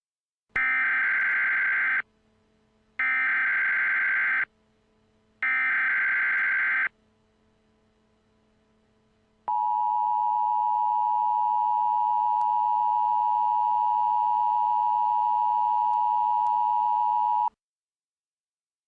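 Emergency Alert System alert opening: three short bursts of SAME header data tones, each about a second and a half long, then the steady two-tone EAS attention signal held for about eight seconds before it cuts off. It heralds a National Weather Service severe thunderstorm warning.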